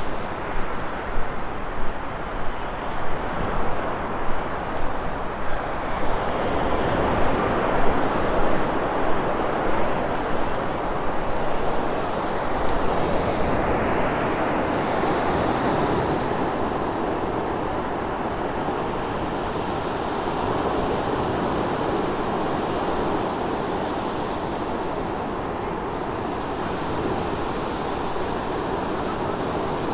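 Surf breaking steadily on a Gulf of Mexico beach, with wind on the microphone. Footsteps in sand at a steady walking pace sound over it for about the first twelve seconds.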